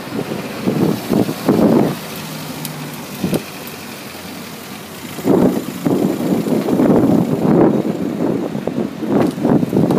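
City street traffic heard while riding along a bike lane beside a tram line, broken by irregular loud rumbling bursts that come almost without pause from about halfway through.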